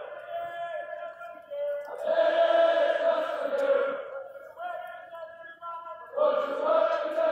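Air Force basic trainees singing a marching cadence in call and response: a single voice sings a line and the whole flight chants it back loudly in unison, twice over.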